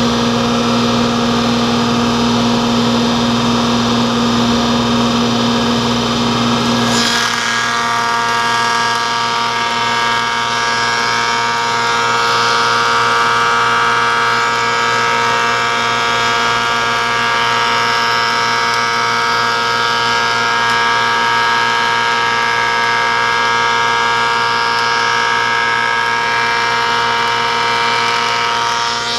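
Planer-moulder running steadily with several steady whining tones while milling wooden shutter louvers. About seven seconds in its tone shifts and brightens as a board feeds through the cutters.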